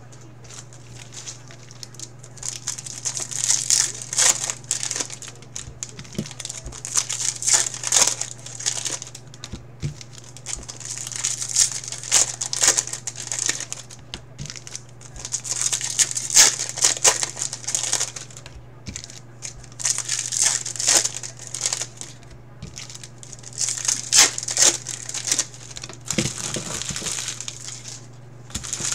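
Crinkling foil trading-card pack wrappers being torn open and crumpled by hand, in about seven bouts a few seconds apart, over a steady low hum.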